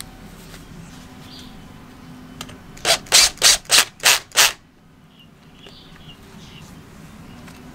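A screw driven into the flywheel's mesh rotating screen with a powered screwdriver, in six short, loud bursts about a third of a second apart. Before them, quieter rubbing and handling of the screen with gloved hands.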